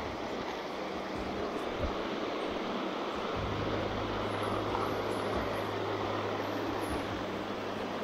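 Water rushing steadily along a narrow stone-lined forest water channel. A steady low hum joins about three and a half seconds in.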